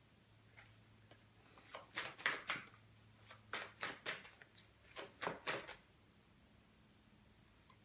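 A tarot card deck shuffled by hand, overhand: short swishes of cards sliding over each other in three quick bunches, from about two seconds in until about six seconds in.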